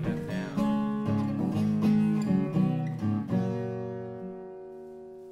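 Acoustic guitar playing an instrumental phrase in a slow country song: a run of plucked notes, then a last chord left ringing and slowly fading from a little past three seconds in.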